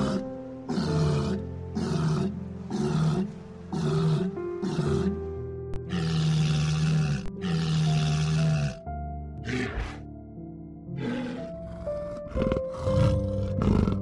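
Walruses calling over background music: a run of short calls less than a second apart, then two longer calls of about a second each. Near the end a different, louder animal call comes in.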